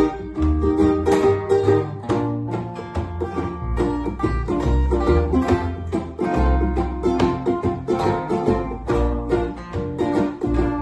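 Instrumental break of an acoustic band: quick plucked-string picking over held bass guitar notes.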